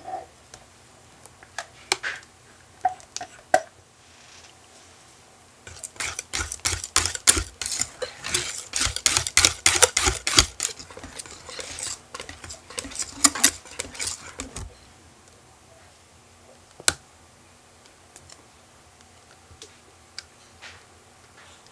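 Wire whisk clinking and scraping against a glass bowl as thick cheesecake batter is mixed by hand. There are a few taps at first, then rapid irregular clinking for about nine seconds, and a single tap a little later.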